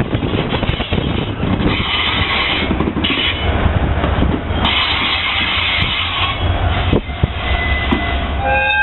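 Diesel freight locomotive passing close by: a steady low engine rumble under a hissing rail-and-wheel noise that swells twice, with one sharp clack about seven seconds in. Near the end a high steady tone sets in.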